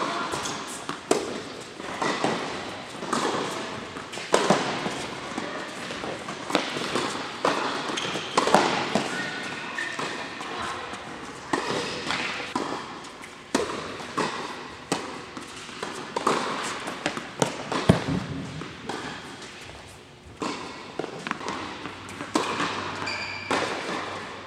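Tennis balls being struck by rackets and bouncing on hard indoor courts: irregular sharp pops that echo in the hall.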